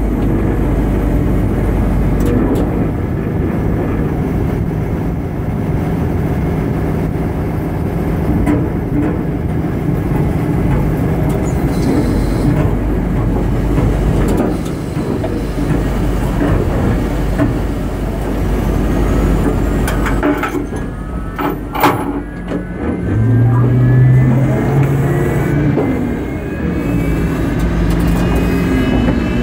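Airbus A330-200 on the ramp after pushback: a steady, loud jet-engine rumble, with a few sharp metallic knocks about two-thirds in as the towbar at the nose gear is handled. After the knocks a low drone swells briefly, and a whine climbs slowly in pitch.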